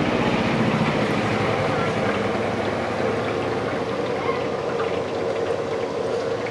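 Steady sizzling hiss of oil in a frying wok, with the wet squelch of batter being beaten by hand in a steel bowl.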